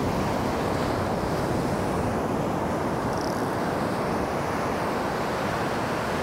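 Ocean surf: waves breaking close by and foamy wash running over the sand, a steady rushing noise.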